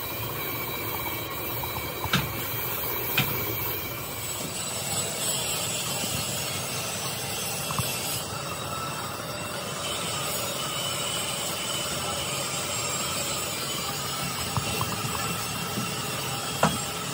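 Steady running noise of metalworking factory machinery, with a few sharp knocks about two and three seconds in and again near the end.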